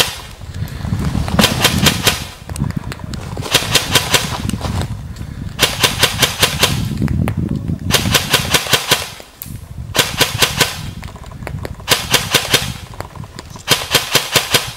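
E&L AR15 airsoft electric rifle (AEG) firing about seven short strings of rapid, evenly spaced shots, each under a second long and about two seconds apart.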